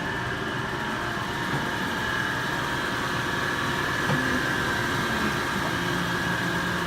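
Steady hum of a powered-up but idle Haas VF-4 vertical machining center, with a constant high whine over it.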